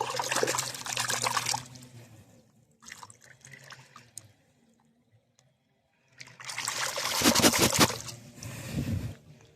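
Creek water splashing and swishing as a stone is rinsed by hand, in two bursts: about two seconds at the start, then about three seconds from roughly six seconds in, with light dribbles between.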